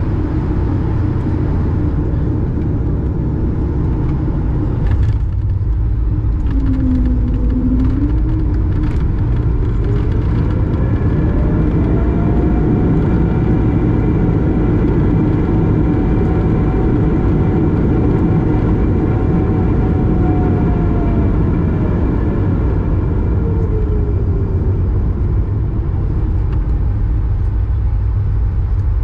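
Airbus A220's Pratt & Whitney PW1500G geared turbofans and rolling noise heard from inside the cabin on landing: a steady loud rumble, with a few knocks about five seconds in as the wheels touch down. From about ten seconds in an engine whine rises, holds, then falls away near the end as the engines spool up and back down on the rollout, typical of reverse thrust.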